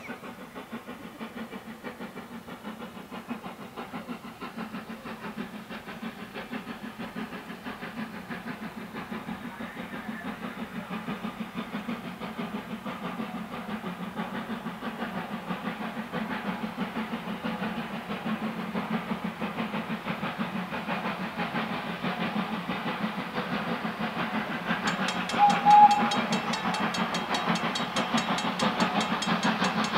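Steam locomotive working toward the listener, its exhaust beating in a steady rhythm that slowly grows louder as it nears. Near the end the whistle gives one short blast.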